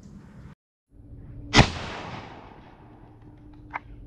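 A single shot from a 12-gauge Stevens single-shot, bolt-type shotgun about one and a half seconds in: a sharp blast whose ringing tail fades over about a second. A short, much quieter click follows near the end.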